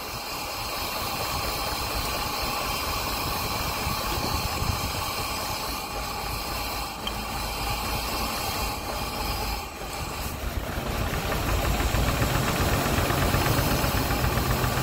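Mercedes-Benz M117 4.5-litre V8 idling roughly and unevenly, misfiring and shaking, while its K-Jetronic fuel pressure is being turned down. The running gets louder near the end.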